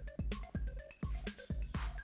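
Electronic music with a steady, punchy bass beat and short repeating synth notes.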